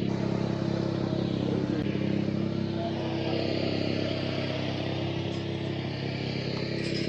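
An engine running steadily with a low, even hum and a constant noisy wash above it.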